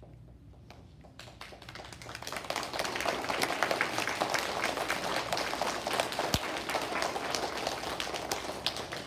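An audience of children applauding. The clapping starts about a second in, grows louder over the next couple of seconds, then goes on steadily as a dense patter of hand claps.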